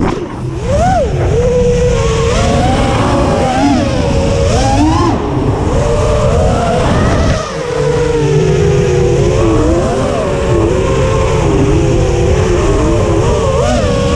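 FPV quadcopter's brushless motors and propellers whining, the pitch of several close tones sweeping up and down with the throttle over a low rushing rumble. The whine dips briefly just after the start and again about halfway.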